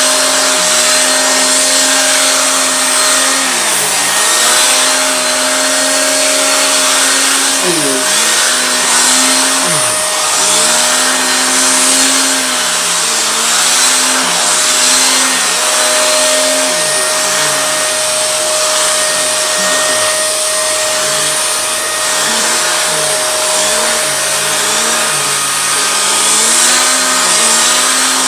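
Vacuum cleaner running continuously while being used on a cat, its motor hum dipping briefly in pitch and recovering many times, most often in the second half.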